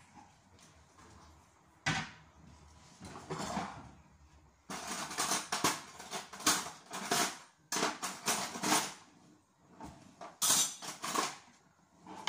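A fork clattering against a bowl as eggs are beaten by hand, in quick, irregular strokes. There is a single sharp knock about two seconds in.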